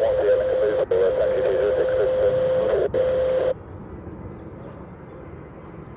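Airband radio transmission from a scanner, narrow and tinny with a steady tone running through it. It breaks up twice for an instant and cuts off about halfway through, leaving quieter background noise.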